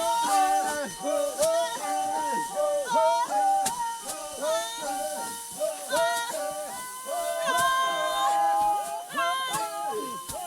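Music with a singing voice: a song carrying a continuous melody.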